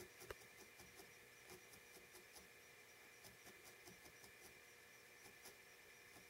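Near silence: faint, irregular ticks of a felting needle stabbing into wool, over a steady faint hum.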